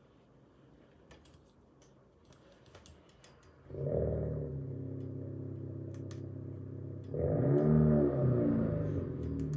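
A few light clicks and handling taps, then about four seconds in a sustained, droning ambient music starts. It swells louder about seven seconds in, with wavering notes over the drone.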